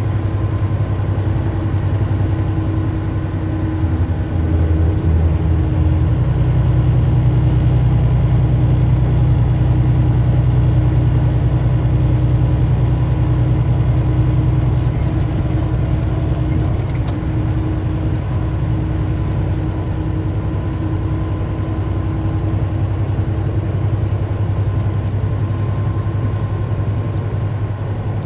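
Truck engine and road noise heard inside the cab while driving: a steady low drone with a few constant tones over it.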